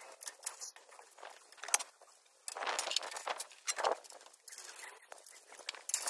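Irregular metallic clinks and rattles of steel scaffold tubes, fittings and tools being handled, with one sharper knock a little under two seconds in.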